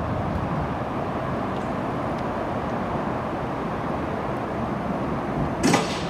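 John Deere 700K crawler dozer's diesel engine idling steadily, with one brief louder noise near the end.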